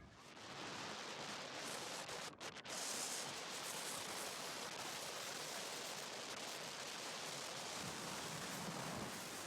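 Steady, even hiss of static with no speech, briefly dipping twice about two and a half seconds in.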